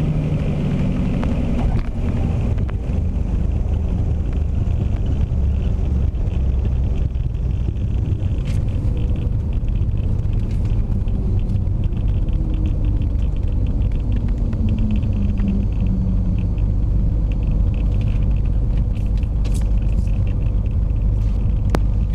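Beechcraft Bonanza's engine idling, heard from inside the cabin as a steady low rumble while the plane rolls out along the runway after landing.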